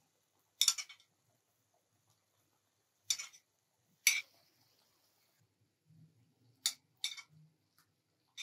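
A metal spoon clinking against a china plate as dried fruit is scraped off it: several short, sharp clinks at irregular intervals, a second or more apart.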